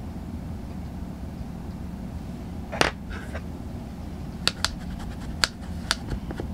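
Small makeup items clicking and tapping as they are handled on a desk: one loud click about three seconds in, then a quick run of about five sharp clicks over the next few seconds. A steady low hum runs underneath.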